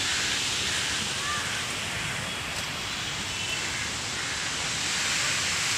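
Steady rush of water from a fountain jet falling into its basin, an even hiss with no breaks.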